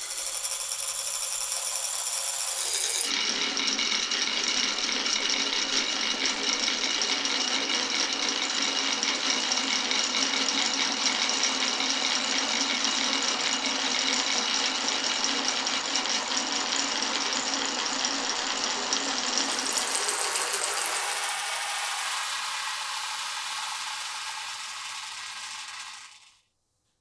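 Many marbles rolling and rattling down marble run tracks in a dense, continuous stream. The sound changes character twice as the balls move onto different track sections, then stops suddenly near the end.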